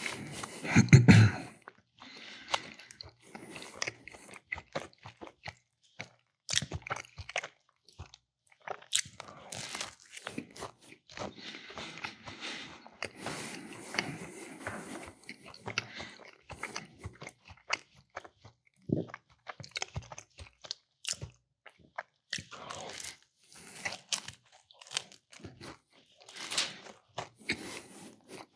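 A person chewing and crunching food close to the microphone: irregular bites and wet mouth sounds throughout, with a louder, deeper sound about a second in.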